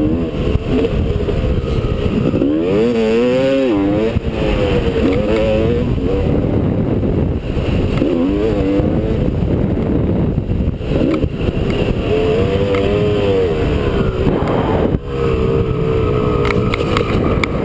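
Two-stroke Honda motocross bike's engine revving up and down under a rider's throttle, its pitch climbing and falling again and again as it accelerates, shifts and backs off. Heavy wind buffeting on a helmet-mounted microphone lies underneath, with a brief drop in engine sound about fifteen seconds in.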